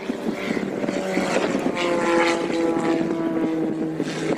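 Propeller aircraft engine droning in flight, a steady pitched hum over rough wind-like noise, its tone stepping lower about two seconds in.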